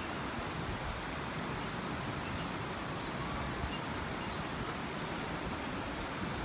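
Steady rushing of a shallow, stony river flowing, with some wind on the microphone.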